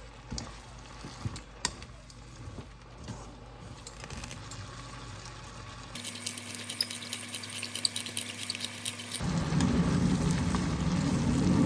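Kitchen cooking sounds: a few soft clicks and handling noises, then from about six seconds in a fine crackling like food sizzling in a pan. From about nine seconds a louder, steady rushing noise follows.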